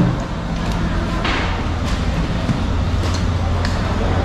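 Steady low machinery hum with sharp clicks every second or so and a short scraping rush about a second in, which fit a long knife working through a bluefin tuna's flesh and bone.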